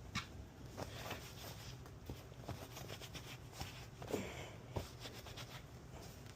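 Faint rubbing and scattered light taps and clicks of the PS5's plastic parts being handled and wiped clean.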